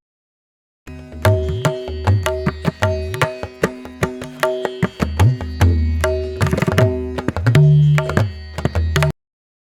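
Music with rhythmic drums and sustained tones, including low drum tones that slide up in pitch, starting about a second in and cutting off abruptly near the end.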